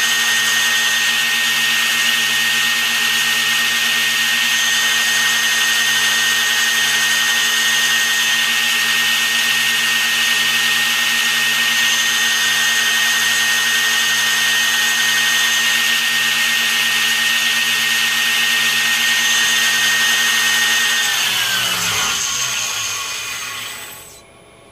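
High-speed spindle motor running at a steady pitch with a high whine. About 21 seconds in it is switched off and spins down, its pitch falling, until it stops near the end.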